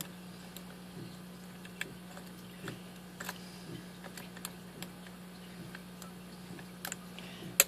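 Small irregular metal clicks and ticks of a lock pick working the pin stack of a Master Lock 6-pin lockout-tagout padlock under tension, with one sharper click near the end, over a steady low hum.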